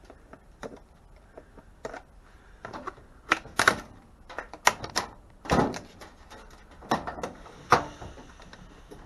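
Irregular clicks, taps and clatters of hand work on a microwave being dismantled, as wiring and small parts are pulled from its casing. The knocks come unevenly, several sharper ones bunched in the middle.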